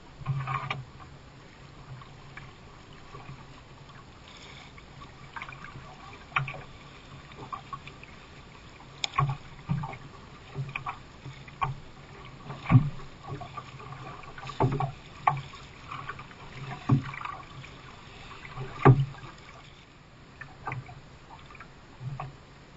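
A canoe being paddled through light sea chop: sharp splashes and knocks on the hull at irregular intervals, roughly every one to two seconds, over steady water noise.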